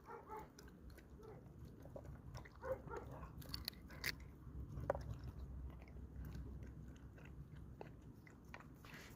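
Belgian Malinois puppy eating a meal of vegetables in bone broth, chewing and biting with irregular small clicks and snaps, a few sharper ones standing out.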